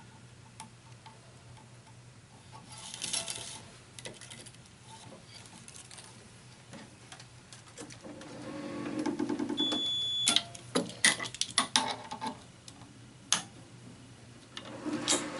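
Tennis racket being strung by hand: string drawn through the grommets with a swish, then a run of sharp clicks and taps of string, clamps and stringing machine, with a brief high tone just before the clicks.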